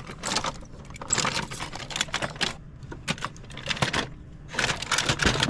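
Small toy cars and trucks clattering and clicking against one another as they are handled and set back in a cardboard box, a quick irregular run of light knocks with a short lull near the end.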